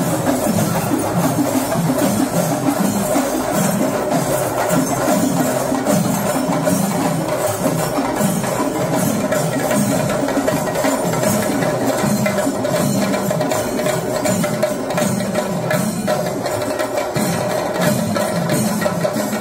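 A Kerala temple festival percussion ensemble playing: dense, continuous drumming with metallic ringing over it, keeping an even rhythm.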